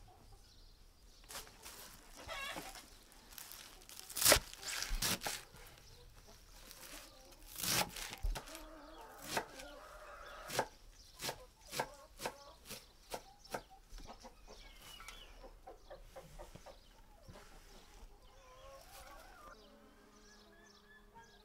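Chickens clucking now and then, with a series of sharp knocks and clicks. The loudest knock comes about four seconds in, and a run of about a dozen knocks, roughly half a second apart, falls in the middle.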